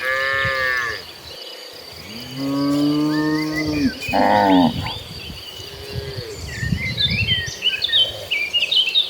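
Cattle mooing, several calls from different animals in the herd: a short call at the very start, a long low moo about two seconds in, a higher call right after it, and a fainter moo near the middle.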